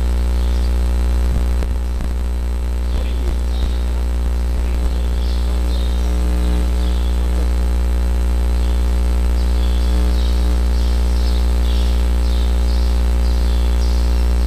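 Steady low electrical hum and buzz, with scattered high chirps of birds over it.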